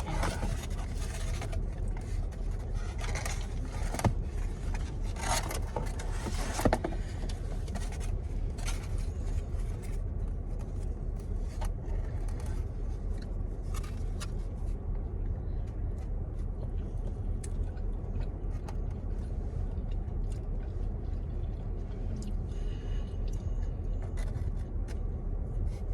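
Steady low rumble of a car's cabin with rustling and scraping from handling food and its packaging, busiest in the first several seconds, with two sharp knocks about four and about seven seconds in.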